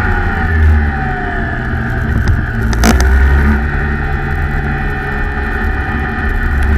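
Rotax Max 125cc two-stroke kart engine heard onboard, its revs falling away over the first couple of seconds as the kart slows for a bend. There is a sharp knock about three seconds in, then the engine runs steadily and picks up again toward the end.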